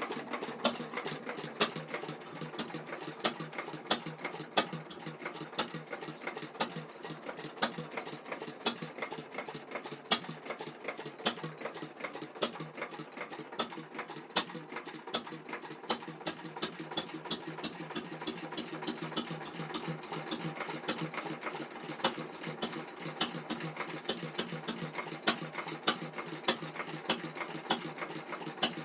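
A 1921/22 Lister H type Bruston lighting-plant stationary engine running on its own: a steady rapid mechanical clatter of clicks and taps, with louder knocks every second or so.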